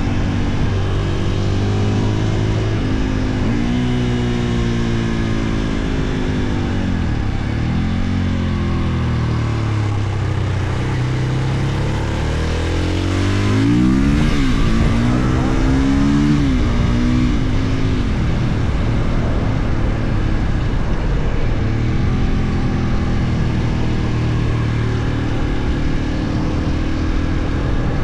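Husqvarna FE 450 single-cylinder four-stroke motorcycle engine revving up and down through the gears while riding, the pitch climbing and dropping with each shift. It is loudest in a hard acceleration about halfway through, where the pitch rises steeply before falling away.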